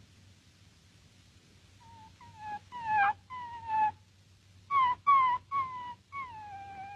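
A small dog whimpering: a run of short whines falling in pitch, then a longer drawn-out whine near the end.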